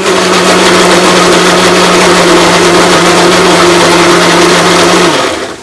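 Electric mixer grinder (mixie) running at full speed with a steady whir and hum, grinding cooked spinach and masala into a thick paste with no water added. It is switched off about five seconds in and winds down.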